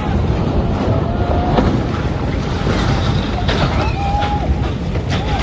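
Loud, steady rushing of wind and water buffeting the microphone, with faint voices now and then.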